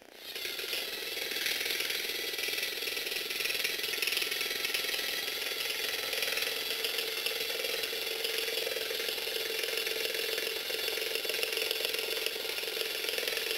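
LEGO Mindstorms NXT walking robot's motor and plastic gear train running steadily, a continuous geared whirring as the legs are driven. It starts just after the brick's button is pressed.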